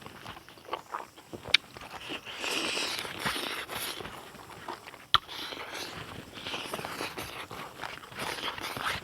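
A person chewing and biting food close to the microphone, with wet mouth noises and a run of small crunches and clicks, two of them sharp and loud, one a bit over a second in and another about five seconds in.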